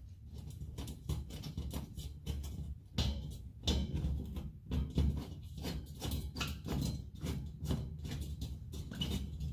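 Return air grille being pressed and shifted against a hole cut in drywall: irregular clicks, taps and light knocks as it moves against the wall and slips in the opening, which is cut too big for it to hold.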